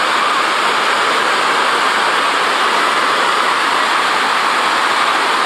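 Water rushing down a waterfall's rock steps close by: a loud, steady rush.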